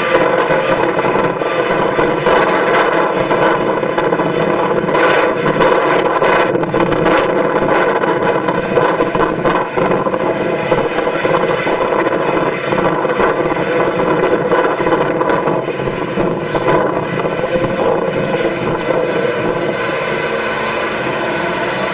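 A heavy machine's engine running steadily under load, with some wind noise on the microphone.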